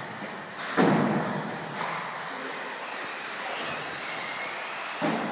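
Radio-controlled off-road car running on an indoor carpet track: a steady whine and tyre noise. Two loud thuds, about a second in and near the end.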